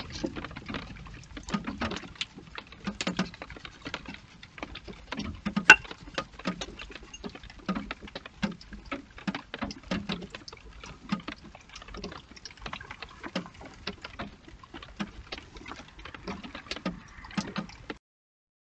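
A hedgehog snuffling and rustling close to the microphone: a rapid, irregular patter of small clicks with soft low puffs about every second, one sharper click about six seconds in. The sound cuts off abruptly near the end.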